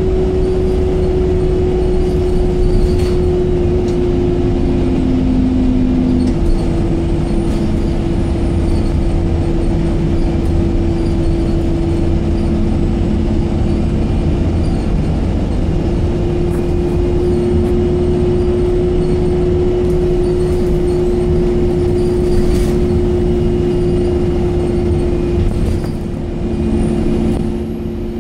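Alexander Dennis Enviro200 MMC single-deck bus heard from inside the saloon while under way: engine and drivetrain running with a steady whine over low road rumble, and a few light rattles. The sound eases briefly near the end.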